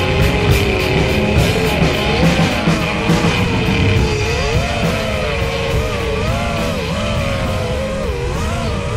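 Rock music soundtrack with a steady beat and a wavering melody line.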